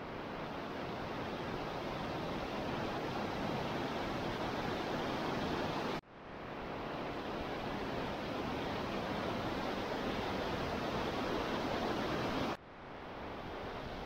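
Steady rushing of a large waterfall and a fast, swollen river close by, an even wash of water noise. It cuts out sharply about six seconds in and again near the end, each time swelling back up within a second.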